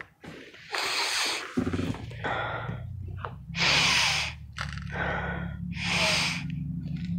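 Four long, deep sniffs through the nose, as someone smells a handful of crushed mothballs. A low steady engine hum starts about a second and a half in.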